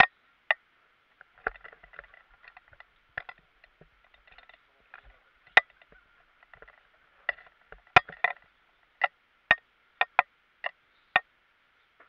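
A series of sharp, irregular cracks and knocks, some single and some in quick clusters, the loudest about eight seconds in, over a faint steady hiss.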